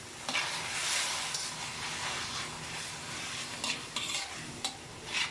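Petchay sizzling in a hot pan as it is stir-fried, with a steady hiss and several short scrapes of the spatula against the pan.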